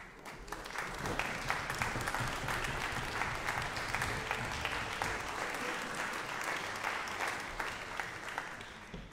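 Concert-hall audience applauding, greeting the conductor's entrance before the orchestra plays. The clapping swells over the first second and thins out near the end.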